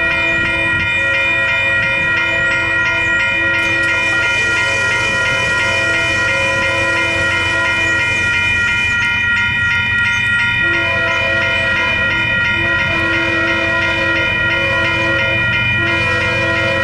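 Railroad grade crossing bells ringing steadily and rapidly while the crossing's lights flash and its gate arms lower. A lower bell tone drops out for a couple of seconds around the middle, then comes back.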